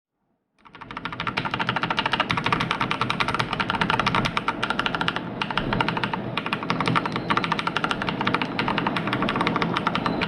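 Fast continuous typing on a Ducky Shine 7 mechanical keyboard with Cherry MX Brown switches: a dense patter of key clicks that fades in after a brief silence at the start.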